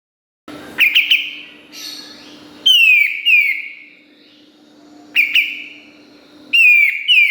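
Kapas tembak songbird calling in four quick bursts of two or three sharp, steeply falling whistled notes each, with short gaps between. A faint steady hum runs underneath. The sound starts suddenly about half a second in, after silence.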